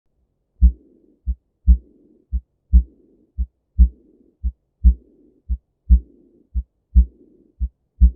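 Heart sounds with a systolic murmur. Eight beats at a steady rate of roughly one a second, each a louder first sound followed by a softer second sound. A hissing murmur fills the interval from the first sound to the second.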